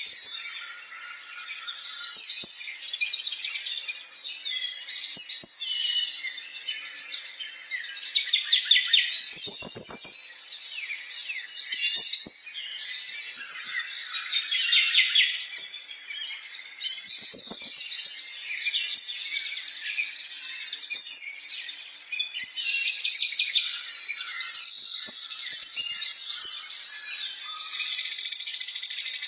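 Many small birds chirping and trilling together in a dense, unbroken chorus of high tweets, with a couple of faint knocks partway through.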